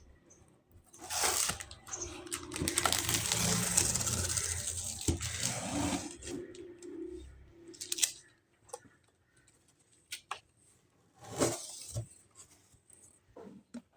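Toy packaging being torn open by hand, a short rip followed by a longer stretch of tearing and crinkling, then a few scattered clicks and taps of handling.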